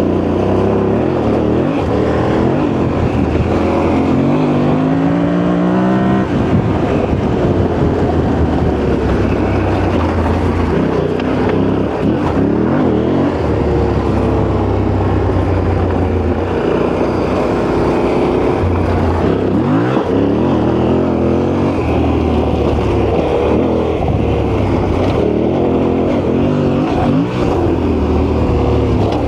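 Yamaha Ténéré 700 parallel-twin engine running under way on an off-road ride. Its pitch climbs with the throttle a few seconds in, then settles and rises again as the revs and gears change.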